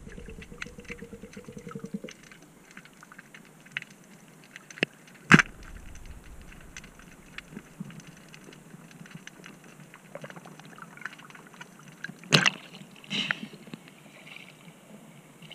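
Underwater: a speargun fires with one sharp, loud crack about five seconds in, over steady faint crackling clicks. Another loud knock comes about twelve seconds in, followed by water sloshing on the microphone near the end.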